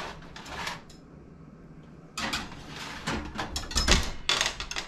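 A baking dish being put into an oven: clattering and scraping of the dish, oven rack and oven door, with a heavy clunk about four seconds in.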